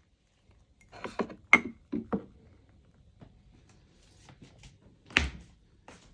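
Knocks and clinks of things being handled and set down: a quick run of four or five knocks about a second in, then one heavier thunk near the end.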